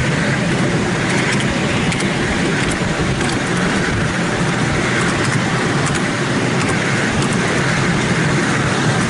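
Miniature steam railway train running along its track, heard from a passenger car behind the miniature LNER 4472 locomotive: a steady rumble and rattle of the wheels on the rails, with light sharp clicks every half second to a second.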